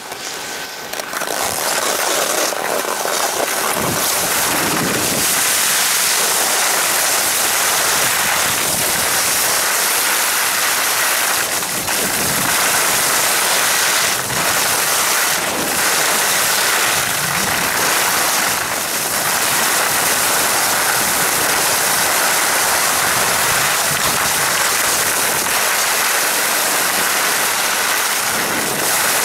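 Steady rushing hiss of a downhill ski run: skis sliding on packed snow, with wind rushing over the microphone.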